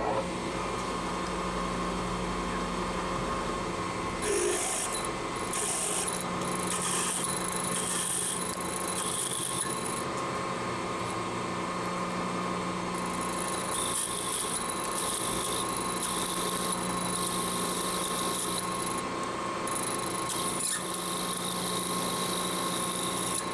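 Milling machine spindle running steadily while a body drill cuts into a metal bar. A high cutting hiss comes in about four seconds in and stops around ten seconds, then picks up again around thirteen seconds and runs to near the end, with a break in between for clearing chips from the deep hole.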